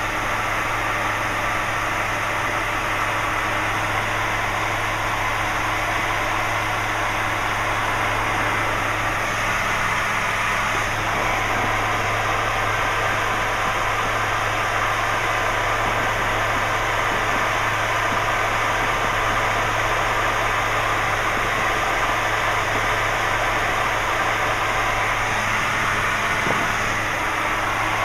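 Light piston aircraft's engine and propeller droning steadily in cruise, heard inside the cockpit.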